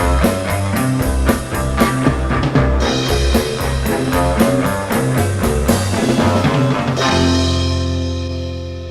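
Heavy psychedelic rock power trio of electric guitar, bass and drums playing, with steady cymbal strokes over a pounding riff. About seven seconds in, the band lands on a final chord that rings and fades as the song ends.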